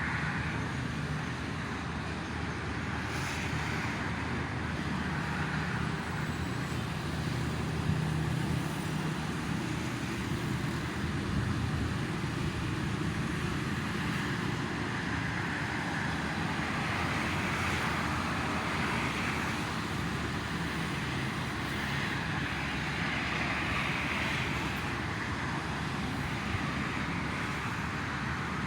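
Steady road traffic from the toll road: a continuous rumble of passing cars and trucks that swells a little now and then as vehicles go by.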